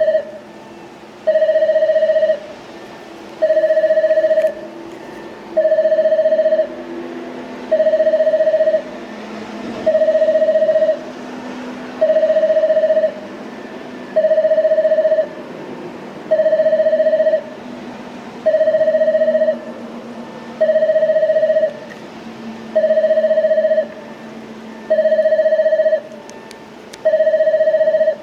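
Railway train-approach warning buzzer sounding: a buzzing tone about a second long, repeating about every two seconds.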